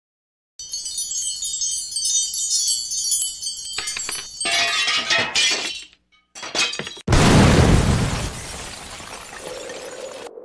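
Logo-intro sound effects: a high shimmering chime for about four seconds, then a quick run of swooshes and glassy crashes, and about seven seconds in a loud deep boom hit that dies away over about three seconds.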